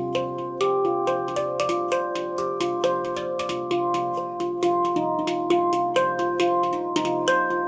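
Music: a melody of quickly repeated struck, ringing notes with a steady pulse, about four notes a second.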